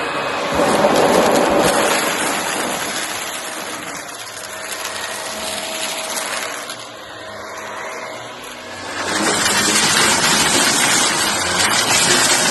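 Shark vacuum cleaner running and sucking up cardboard mess. Its sound is continuous but changes in level, dropping off in the middle and then getting louder and harsher about nine seconds in.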